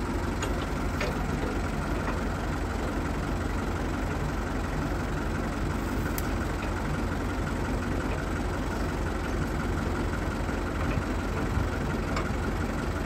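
Farm tractor's diesel engine idling steadily, with a few light metal clicks as the hitch's top link is turned.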